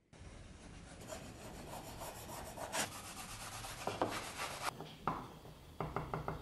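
Hand file scraping and rubbing along a pine scabbard strip, in uneven strokes, followed near the end by a quick run of light clicks.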